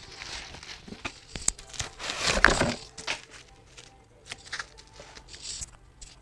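Album packaging handled during unboxing: irregular crinkling and rustling with small clicks, loudest in a burst about two and a half seconds in.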